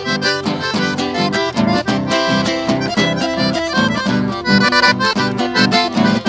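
Accordion playing a chamamé melody over a steady, pulsing chord accompaniment.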